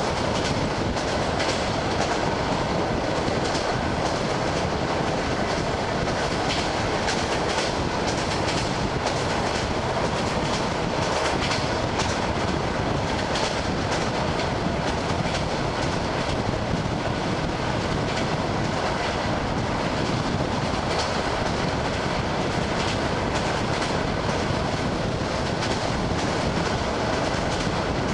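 Wheels of an ED9M electric multiple unit clattering over the rail joints at speed, heard from inside the carriage by the window: a steady running noise with frequent sharp clicks.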